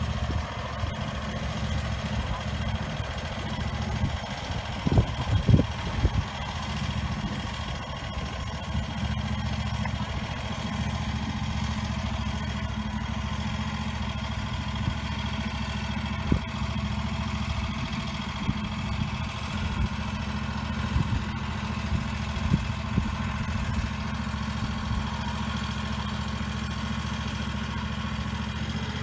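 Engine of a Beachlauncher amphibious boat launcher running steadily at low speed, with a few louder low thumps about five seconds in.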